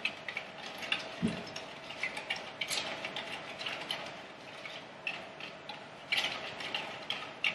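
White plastic spoon stirring borax into warm water in a clear plastic cup, clicking and tapping against the cup's sides: a run of light, irregular clicks that thins out about halfway through, with a short cluster of taps near the end as the cup is handled.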